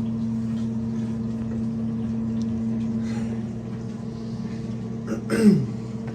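Steady low machine hum with a few fixed pitches. About five seconds in, a short, louder sound drops quickly in pitch.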